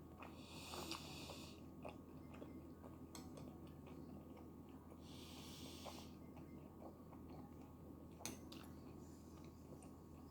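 Soft, close chewing of tteokbokki rice cakes with a few small wet mouth clicks, and two breaths out through the nose, about half a second in and about five seconds in.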